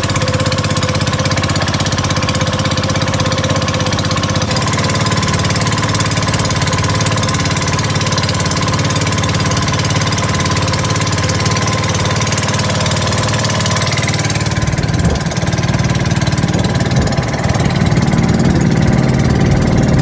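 A fishing boat's engine running steadily and loudly, with an even rapid firing pulse and a hiss of wind and water over it. Its tone shifts abruptly twice, about four and a half and fourteen and a half seconds in.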